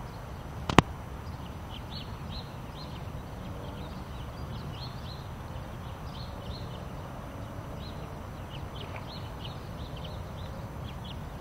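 Small birds chirping over and over over a steady low rumble outdoors, with one sharp click a little under a second in.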